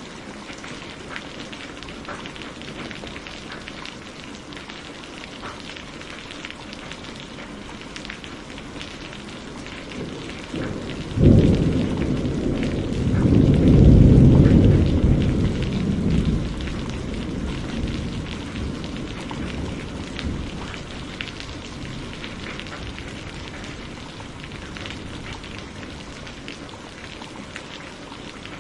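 Steady rain falling, with one thunderclap about a third of the way in: a sudden crack followed by a deep rolling rumble that swells, then fades away over several seconds.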